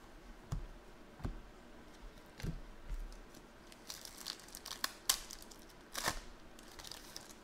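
Foil trading-card pack wrappers being torn open and crinkled by hand. A few soft taps come in the first three seconds, then from about four seconds in a run of crinkling with sharp snaps.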